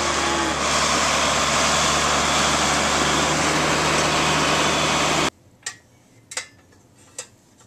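John Deere tractor and Knight mixer feeder wagon running while unloading feed into a fence-line bunk: a steady engine and machinery drone with a hiss over it. It cuts off suddenly about five seconds in, followed by a few light clicks and taps of a steel toy feeder wagon being handled.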